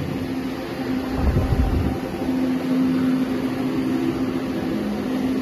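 Steady machine hum with a constant low tone, from industrial machinery running on a factory floor, with a brief low rumble about a second in.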